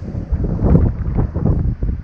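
Wind buffeting the microphone in irregular gusts, loud and low-pitched.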